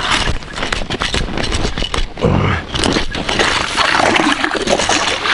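Hand-cranked ice auger boring through river ice: a steady, crunching scrape of the steel cutting blades chipping the ice as the brace is turned. The driller reckons the blades are being ruined.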